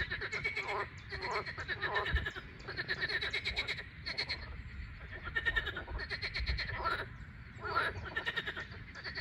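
A chorus of frogs calling over one another: rapidly pulsed, buzzing calls that follow each other about once a second, with short gaps between.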